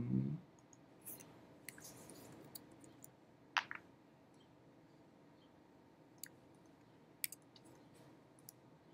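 Scattered soft clicks of a computer mouse, single clicks a second or more apart, the loudest about three and a half seconds in.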